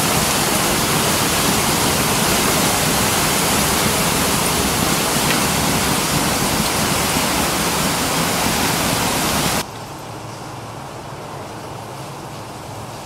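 Water gushing from a sheared fire hydrant and cascading over a low wall, a loud steady rush. About ten seconds in it drops abruptly to a quieter, steady rush.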